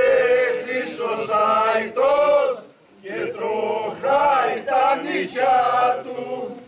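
Group of men singing a Greek folk dance song together without instruments, in long sung phrases with a short pause between phrases about three seconds in.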